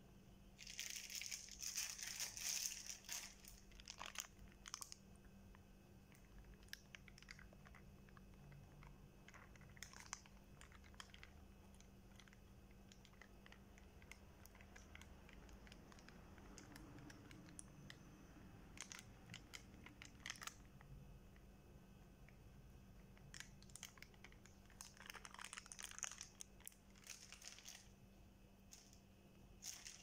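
Thin plastic takeaway bags of curry gravy crinkling and rustling as they are handled, opened and squeezed out over rice, in several bursts, the loudest about a second in. A steady low hum runs underneath.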